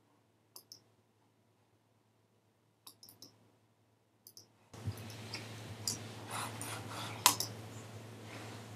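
A few sharp, sparse clicks over near silence, then about five seconds in a steady low hum and hiss starts, with more scattered clicks, the loudest one near the end.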